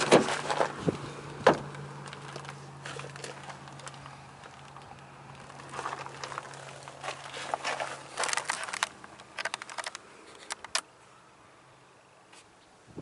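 A steady low mechanical hum that shifts slightly in pitch about eight seconds in and stops near the end, with scattered clicks and rustles over it.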